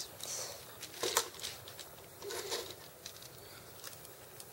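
Plastic parts of a Transformers Voyager Megatron action figure clicking and rustling as it is handled, with a few soft knocks while a piece is pushed into place.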